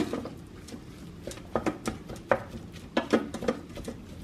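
Wooden spoon stirring ground beef in an Instant Pot's stainless steel inner pot, knocking and scraping against the metal in short irregular clicks, about three a second.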